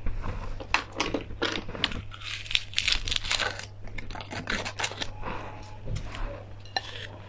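Close-up crinkling and crackling with sharp crunches from candy being handled and bitten, dense in the first few seconds and sparser after; a low steady hum underneath.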